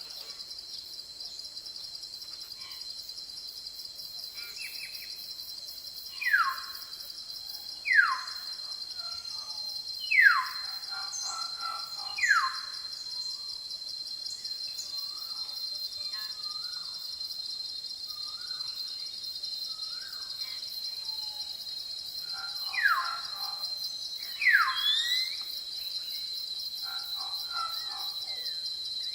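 Forest ambience: a steady, high-pitched chorus of insects runs throughout, and a bird gives six loud, steeply falling whistled calls, four in a row and then two more near the end, among softer chirps from other birds.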